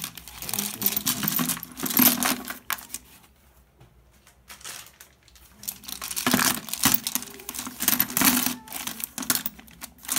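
Hands arranging items in a clear plastic fish bowl: plastic wrapping crinkling and small hard pieces clicking and clinking against the bowl. The handling comes in two spells, with a quieter gap of a few seconds in the middle.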